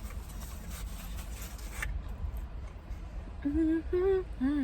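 Close-miked chewing of pizza, a crackly run of small clicks that stops suddenly about two seconds in. Then a woman hums three short "mm" notes with her mouth full.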